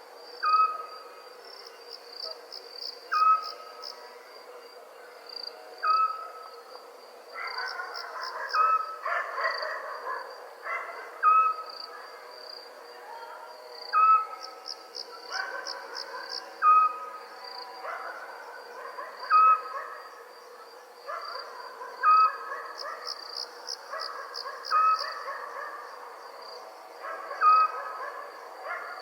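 Night crickets chirping steadily, with pulsed trills rising out of the chorus every few seconds. Over them a short, loud animal call repeats about every two and a half to three seconds.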